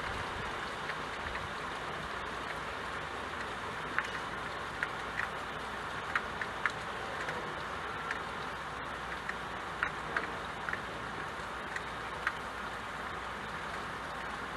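Steady rain, an even hiss, with occasional louder single drops ticking through it.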